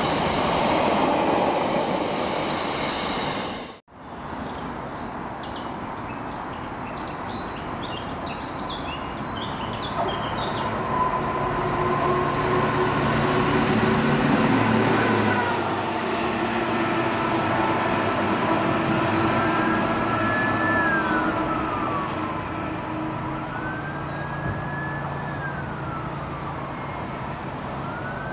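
Freight train of box wagons rushing past on the rails; after a sudden break a few seconds in, a self-propelled track maintenance machine runs toward the camera with its engine rumbling. In the second half a siren wails slowly up and down several times.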